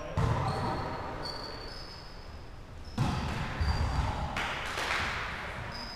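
A volleyball being struck by hand: two sharp smacks about three seconds apart, each ringing on in the echo of a large gymnasium. Short high squeaks of sneakers on the hardwood floor come in between.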